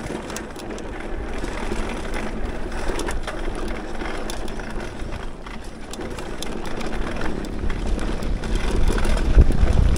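Mountain bike rolling fast down a dirt trail: tyre noise on the ground with frequent small rattles and clicks from the bike, over a low rumble that grows louder toward the end.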